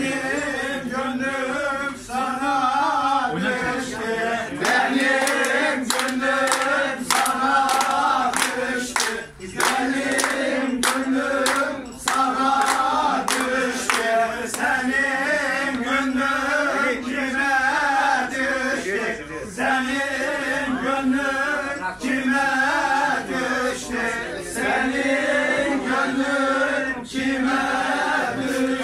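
A group of men singing together, with rhythmic hand claps for several seconds through the middle.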